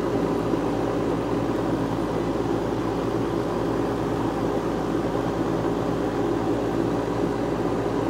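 Outdoor air-conditioning condensing unit running: a steady hum of the compressor and condenser fan, with a few low fixed pitches under a constant whoosh of air.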